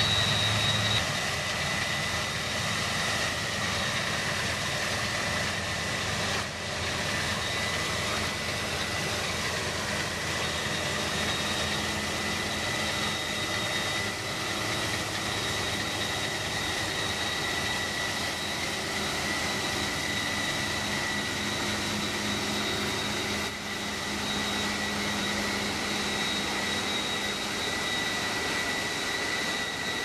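New Holland CR920 combine harvester running while harvesting wheat: a steady machinery noise with a constant high-pitched whine over a low hum.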